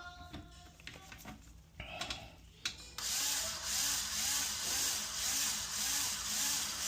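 Power drill driving a toilet-seat screw into plastic, running for about four seconds from about three seconds in, with a rhythmic rubbing squeak a little over twice a second as the screw turns. Before that come a few light handling clicks.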